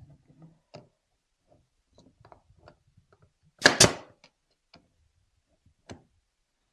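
Pneumatic 18-gauge brad nailer firing once, about halfway through: a sharp double pop as it drives a 1½-inch brad into the wooden tree joint. Faint clicks and taps of the nailer and wood being positioned come before and after it.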